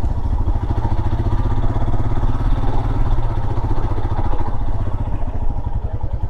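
Motorcycle engine running steadily under way, its rapid firing pulses heard close up.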